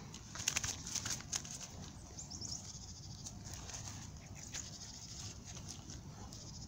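Crackling and rustling of dry straw and grass being handled, with a cluster of sharp crackles in the first second and a half, over a faint outdoor background. A brief high chirp comes about two seconds in.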